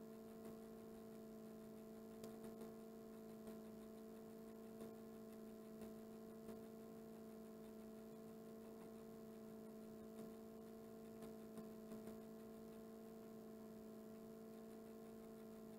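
Near silence: room tone with a steady low hum and a few faint soft ticks.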